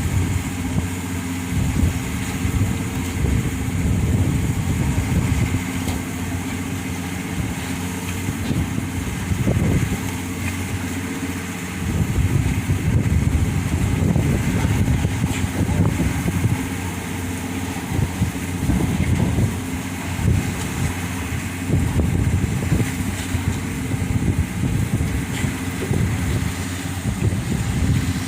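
Ferry's engines running steadily, with strong wind rumbling in gusts on the microphone.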